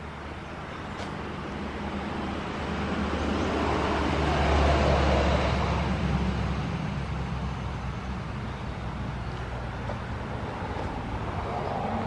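A motor vehicle passing on a nearby road: a rushing hum that swells to its loudest about five seconds in and then slowly fades.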